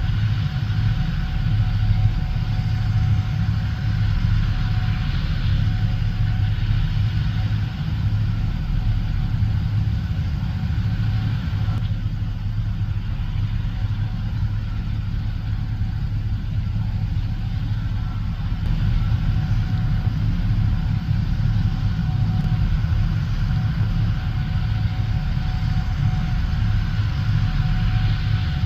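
Gleaner S77 combine running steadily while harvesting corn: an even, deep engine drone with a steady higher whine over it.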